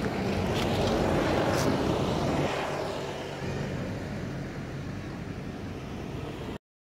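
A motor vehicle passing: steady engine and road noise that swells over the first couple of seconds and then fades. The sound cuts off abruptly near the end.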